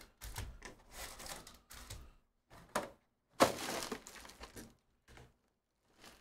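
A Panini Prizm football hobby box being opened and its foil card packs pulled out and set down: a run of rustling and crackling, with one sharp knock about three and a half seconds in.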